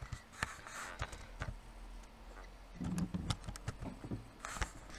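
Irregular light clicks of a computer keyboard and mouse as text is typed and edited.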